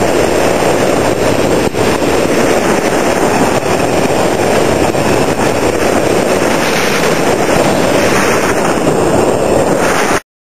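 Loud, steady rushing of a waterfall, mixed with wind buffeting the microphone; it cuts off suddenly near the end.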